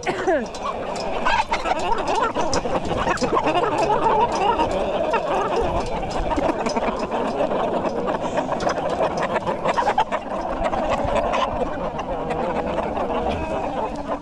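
A flock of cockerels clucking and chattering close up, many overlapping calls at once, with scattered sharp clicks.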